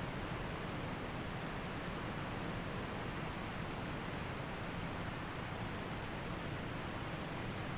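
Waterfall rushing steadily, a continuous even noise of falling water with no breaks or separate events.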